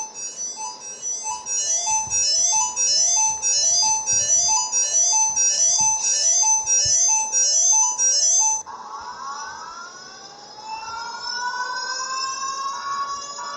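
Synthesized emergency-alert tones: a fast repeating pattern of short, keyboard-like notes stepping downward. About eight and a half seconds in it cuts off and gives way to slow rising siren-like sweeps.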